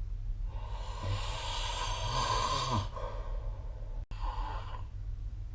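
A sleeping person snoring: one long breathy snore starting about half a second in and lasting over two seconds, then after a brief dropout a shorter breath a little past four seconds in, over a low steady hum.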